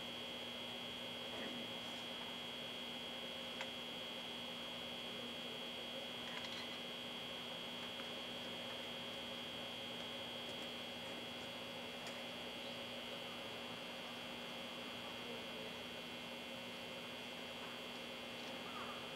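Steady electrical hum with a thin high whine over it and a few faint ticks.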